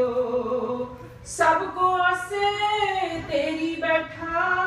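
A woman singing a Sikh hymn (shabad) unhurriedly in long, held notes that glide slowly from one pitch to the next.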